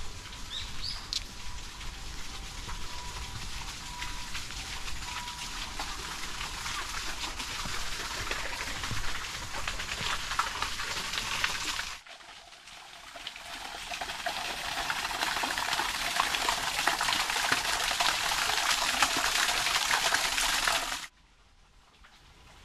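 Water rushing steadily over rocks. It breaks off abruptly about halfway, comes back louder, and cuts off again shortly before the end.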